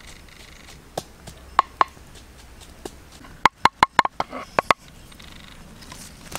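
Wooden pestle pounding red chilies and garlic in a wooden mortar: a few single knocks, then a quick run of about eight strikes in the second half.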